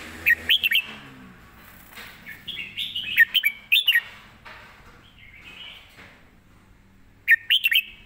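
Red-whiskered bulbul singing: three short phrases of quick, rising and falling whistled notes, one at the start, a longer one around the middle and another near the end.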